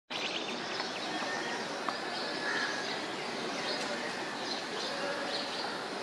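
Steady outdoor background noise with small birds chirping now and then, short high calls scattered through it.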